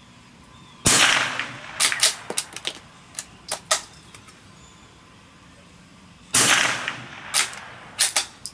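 Two shots from a Browning T-Bolt .22 LR rifle firing CCI standard-velocity rounds, about five and a half seconds apart, each a sharp crack with a short echo. After each shot comes a run of metallic clicks as the new straight-pull bolt, still tight, is worked to chamber the next round.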